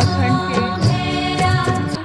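Music: a song with a voice singing over instruments, with a few sharp percussive strokes.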